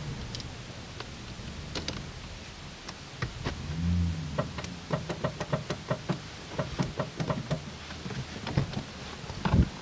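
Low steady rumble inside a parked car's cabin, with a run of quick, irregular small clicks and ticks from about three seconds in.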